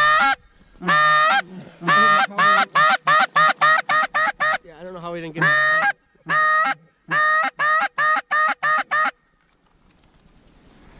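Goose call blown close by, imitating Canada geese: a few long honks, then fast runs of short clucks at about four to five a second. It stops about nine seconds in.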